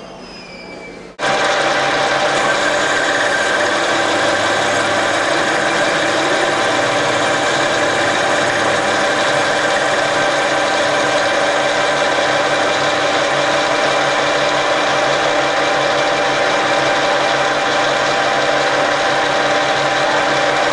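Metal lathe running while its cutting tool faces off the end of a round metal bar. It is a steady, loud machining noise with several steady whining tones through it, and it starts abruptly about a second in.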